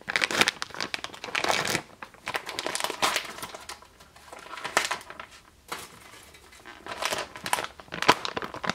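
Plastic bag of cheese crinkling and rustling in irregular bursts as it is handled and opened, with quieter gaps in between.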